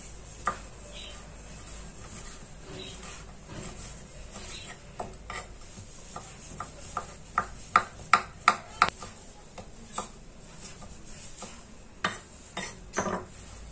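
A knife chopping cooked chicken on a wooden cutting board: irregular sharp taps of the blade on the board. They come quicker and louder about two-thirds of the way through.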